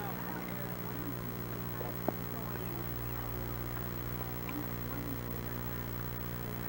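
Steady low electrical hum on an old camcorder recording, with faint scattered high chirps and one sharp click about two seconds in.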